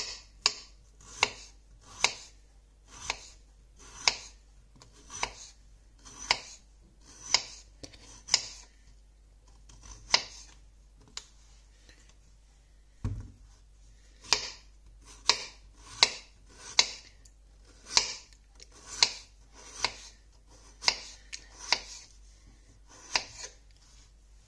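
Small kitchen knife slicing peeled raw potatoes into rounds on a wooden cutting board, each stroke ending in a sharp tap of the blade on the board, about one a second. The slicing stops for a few seconds midway, broken by one low thud, then starts again.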